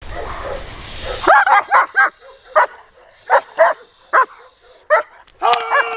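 German Shepherd police dog barking at a decoy during bite-work agitation: about ten sharp barks, some in quick runs of three, ending in a longer drawn-out bark.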